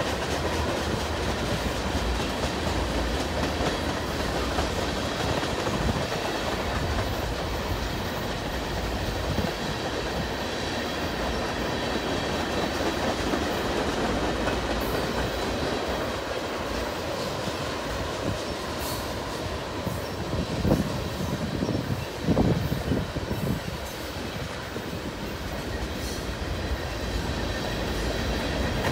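Freight train tank cars rolling past: the steady rumble and clatter of steel wheels over the rails, with a few louder knocks about two-thirds of the way through.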